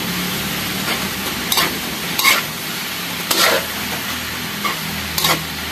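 Metal spatula scraping and stirring pork intestines in a metal wok as they sizzle over the burner, with about five separate scrapes against the pan over a steady frying hiss.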